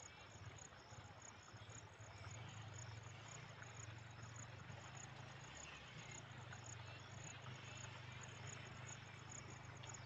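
Field crickets chirping in a fast, even, high-pitched pulse, with a faint steady low hum underneath.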